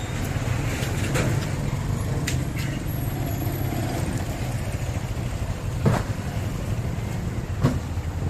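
A motor vehicle engine running with a steady low rumble, with a few sharp knocks and clicks along the way.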